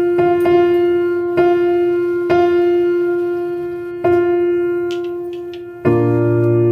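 Background music: one note struck again and again, each strike fading away, with a fuller chord coming in near the end.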